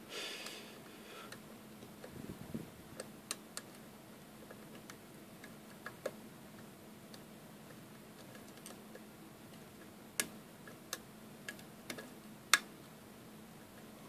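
Lock pick working the pins of a Mul-T-Lock Interactive cylinder lock: scattered faint metallic ticks, then a quicker run of sharper clicks from about ten seconds in, the loudest near the end.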